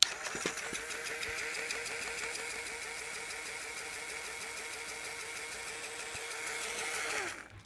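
Small battery-powered electric motor in a Lego model switching on with a click and running with a steady whine for about seven seconds, then cut off near the end, its pitch dropping as it winds down.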